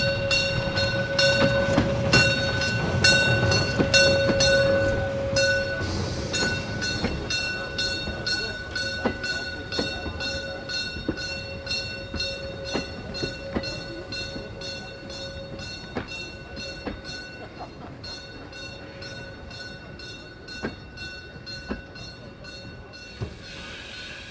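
Steam train hauled by locomotive 99 7203 rolling past and away, its wheels clicking over the rail joints at a steady beat, with a steady high-pitched squeal. It grows fainter as the train moves off, and the low rumble fades out after about six seconds.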